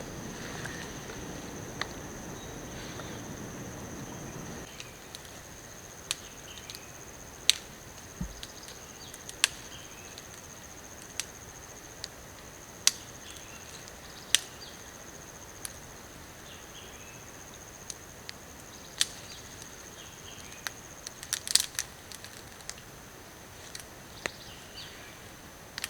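A steady high-pitched insect trill, like a cricket or cicada, with irregular sharp ticks and pops scattered through it. A low rushing background fades out about four and a half seconds in.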